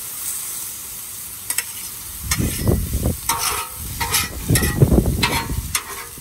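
Steel spatulas scraping across a 36-inch Blackstone flat-top griddle as diced corn, bell pepper and onion are tossed, over a steady sizzle. Quiet at first, then the scraping strokes come repeatedly from about two seconds in.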